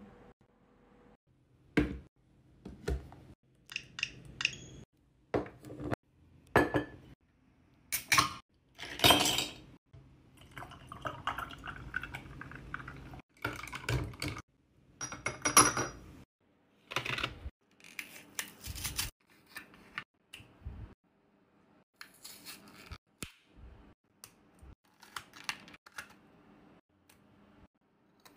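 Small hard objects being handled and set down while unboxing: a string of irregular clicks, clinks and knocks, with a short stretch of rustling partway through.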